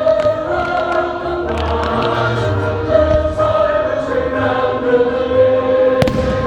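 Choral music with held sung chords over a low beat, and a single sharp firework bang near the end.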